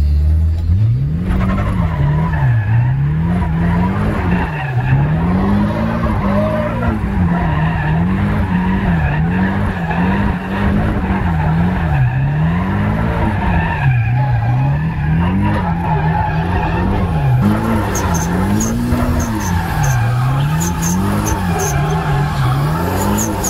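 Nissan S14 Silvia Kouki's stock SR20 four-cylinder engine revved up and down again and again, about once every one to two seconds, with the tyres skidding as the car slides, heard from inside the cabin.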